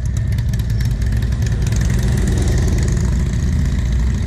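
Harley-Davidson touring motorcycles' V-twin engines running at low revs as the bikes ride slowly away, a steady loud rumble.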